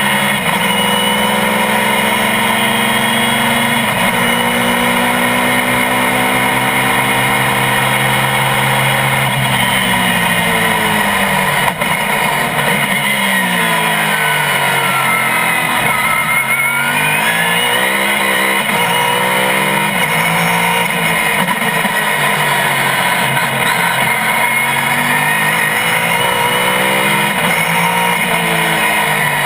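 GT-1 race car engine running hard, its pitch climbing through a gear change early on. From about nine seconds in it falls away for several seconds, as when slowing for a corner, then climbs again under acceleration.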